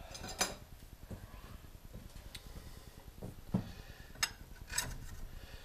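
A few short, sharp metallic clicks and clinks from metal parts and tools being handled at a metal lathe, the loudest about four seconds in.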